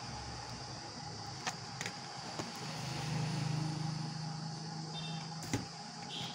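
Plastic cassette cases in cellophane wrap clicking and knocking a few times as they are handled, over a steady background hum. A low drone comes in about two and a half seconds in and holds for about three seconds.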